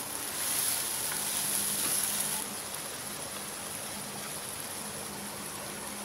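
Grated pumpkin frying in a pan, stirred with a wooden spatula: a louder scraping, rustling hiss for about two seconds, then a steady low sizzle as the pan sits on the heat.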